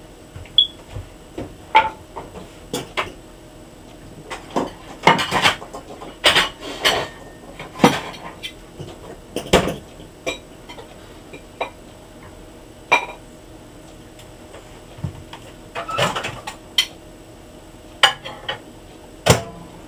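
Dishes and cutlery handled at a kitchen counter: irregular clinks and knocks, with a lull a little past the middle.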